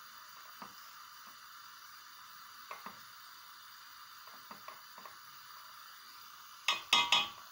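A silicone spatula stirs a thick minced onion-and-tomato mixture cooking in oil in a stainless steel pot, with soft scattered scrapes and squelches. A short clatter of several sharp strokes comes near the end.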